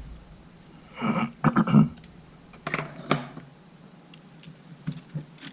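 Small tools being handled on a workbench: a run of clicks and knocks, loudest about one and a half seconds in, then another cluster about three seconds in and a few faint ticks near the end.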